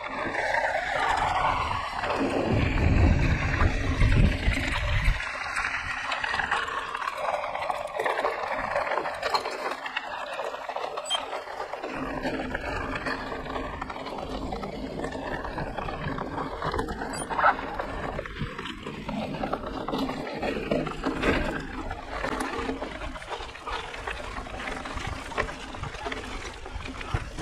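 Mountain bike being ridden along a dirt trail: a steady rush of riding noise with many small rattles and clicks. There is a heavy low rumble for a few seconds near the start.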